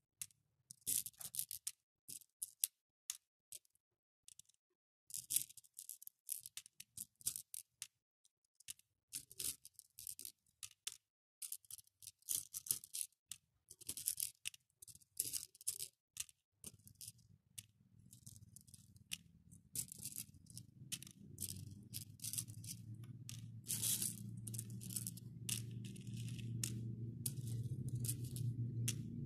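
Small faux pearl beads clicking and rattling against each other and the clear plastic tub as fingers stir and pick through them, in quick irregular bursts. Low background music fades in over the second half and grows louder toward the end.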